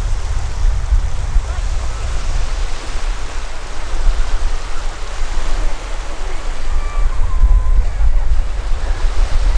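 Sea waves washing on a beach, with wind buffeting the microphone in a heavy, uneven low rumble.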